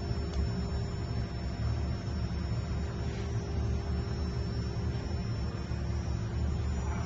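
Steady low electrical hum with a few faint steady tones above it and a light hiss, unchanging throughout.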